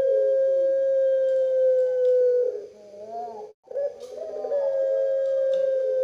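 Caged pale collared dove of the puter pelung type, bred for its long coo, giving drawn-out coos. A long held note sinks slowly in pitch and breaks off about two and a half seconds in. After a short rising-and-falling note and a brief pause, another long coo begins about a second and a half before the end.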